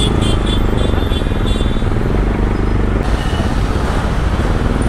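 Motorcycle engine running while riding through city traffic, with a row of short, high beeps repeating quickly through the first second and a half.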